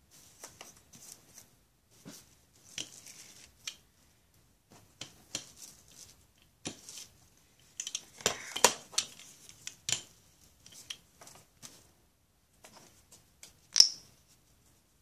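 Plastic cling wrap crinkling and rustling as a hand brayer is rolled and pressed over it on wet paint, in irregular bursts that are busiest around the middle, with one sharp click near the end.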